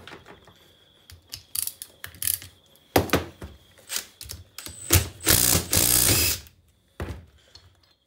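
Ratchet clicking and metal knocks on a locking hub's cover, then a Makita cordless impact driver runs for about a second on the hub cover's small bolts, about five seconds in.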